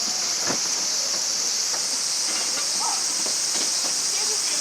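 Insects chirping in a steady, high-pitched chorus, with a few faint clicks.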